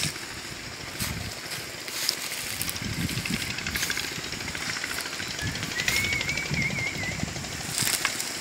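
Outdoor ambience of rustling and low knocks close to the microphone, with a few sharp clicks. A little over halfway through, a bird gives a wavering, whistled call lasting about a second and a half.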